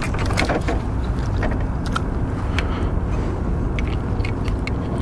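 Steady low rumble of wind buffeting the microphone over open water, with scattered light clicks and taps from handling on the boat.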